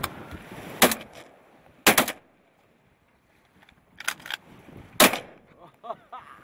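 Shotgun blasts fired from a boat at seabirds: about six or seven sharp shots over five seconds, some in quick pairs, with a short lull in the middle.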